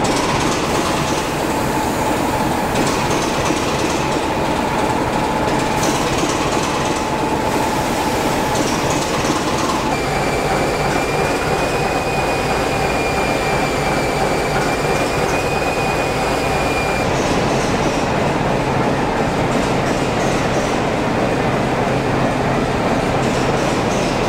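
Steady train running noise: a continuous rumble with a sustained high whine that changes pitch about ten seconds in.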